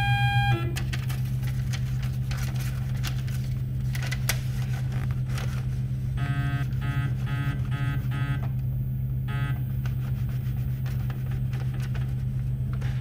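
Steady electrical hum of a powered-up Tormach 15L Slant-PRO CNC lathe, with scattered light clicks and rustling as the tool holder is brought in against a paper feeler. About six seconds in, five short electronic beeps come in quick succession, then one more beep.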